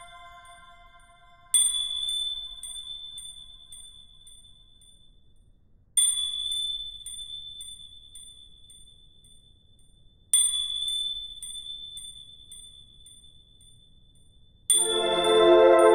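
Background music: a single high chime-like note struck three times, about four seconds apart, each ringing out and fading slowly. Near the end a fuller chord of many notes comes in and holds.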